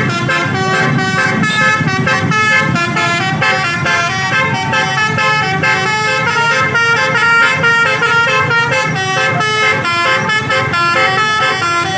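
Indonesian bus 'telolet' basuri musical air horn playing a fast melody, its tones stepping from note to note several times a second without a break, over a low rumble.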